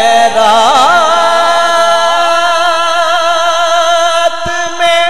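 A man singing a naat, an Urdu devotional poem, into a microphone, drawing out long ornamented notes with a wavering vibrato over a steady low hum.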